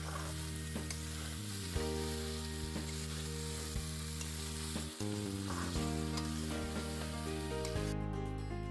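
Pasta frying and sizzling in a pan, with faint clicks of stirring, over steady background music. The sizzling cuts off near the end, leaving only the music.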